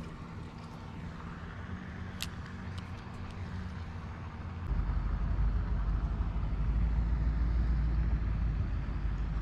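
Truck engine idling with a steady low hum. About halfway through, a much deeper, louder rumble sets in and holds.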